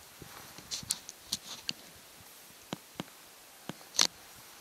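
Scattered light clicks and knocks: small ticks in the first two seconds, a few sharper knocks, then the loudest, a sharp knock, about four seconds in.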